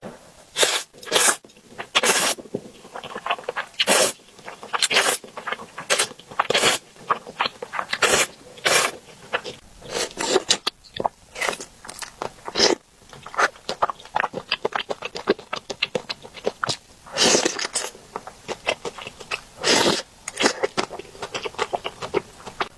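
Close-miked eating of spicy noodles and dumplings: rapid, irregular wet chewing clicks, broken every second or two by louder short noisy slurps.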